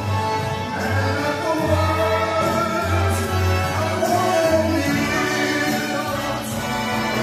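Music with singing voices over a steady low bass line.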